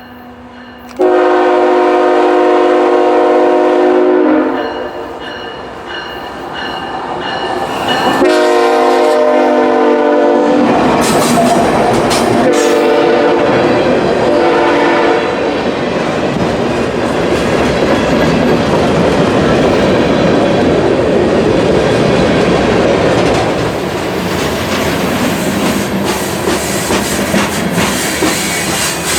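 Diesel freight locomotive sounding its multi-note air horn: a long blast about a second in, another about eight seconds in, then shorter blasts. The train then rolls past with a steady rumble and clatter of wheels on rail.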